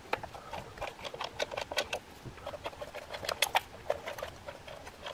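Light, irregular clicks and scratchy ticks of a hand tool and small Torx screws as the ignition coil-pack hold-down screws are loosened and taken out.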